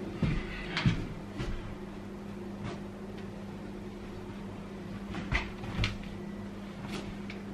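Scattered footsteps and light knocks from a person walking about a small room while carrying and handling an acoustic guitar, about seven separate taps over a steady low hum.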